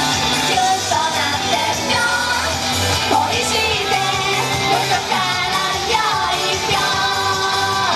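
A female voice sings an upbeat pop song into a microphone over backing music.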